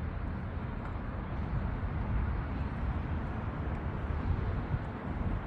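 Steady outdoor ambience: a continuous wash of noise with a strong low rumble and no distinct events.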